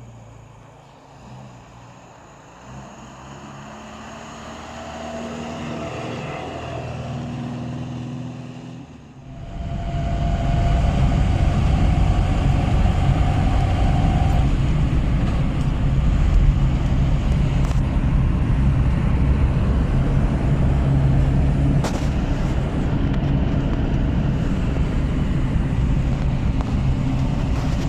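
Moskvich 412's four-cylinder engine pulling away, its pitch rising through the gears. After about nine seconds it gives way to loud, steady cruising noise heard from inside the car: a low drone with a whine, which the owner calls a howl that is audible but tolerable.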